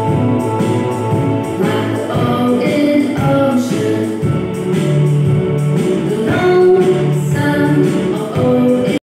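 Children's phonics song: singing over instrumental backing from an educational animation played on a classroom smartboard. It cuts off abruptly near the end.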